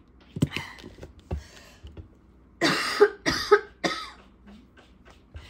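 A woman coughing from being sick: a couple of smaller coughs, then a run of four or five loud coughs about halfway through.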